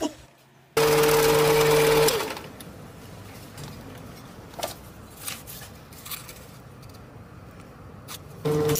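Mini lathe motor running with a steady whine. It stops abruptly about two seconds in, leaving a quiet stretch with a few faint clicks, and starts running again near the end.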